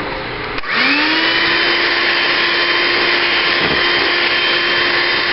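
Electric hand mixer switched on less than a second in, its motor spinning up quickly and then running at a steady pitch as the beaters work egg yolk into stiffly whipped egg whites.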